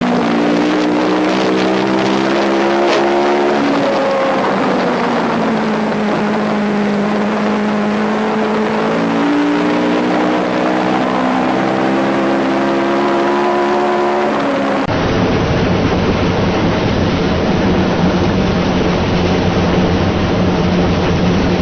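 AI-generated racing-car engine sound made for footage of a Tyrrell 003 Formula 1 car: a pitched engine note that falls, climbs and falls again as if the car were slowing and speeding up. About 15 seconds in, it switches abruptly to a duller, rougher engine noise.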